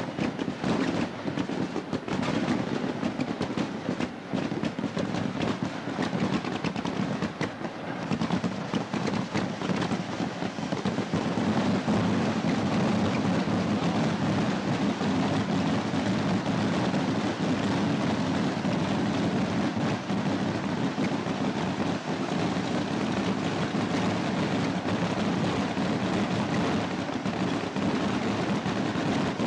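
Massed voladores (stick rockets) fired in rapid succession from launch racks: a dense run of sharp cracks and bangs that thickens about ten seconds in into a louder, steady, unbroken din.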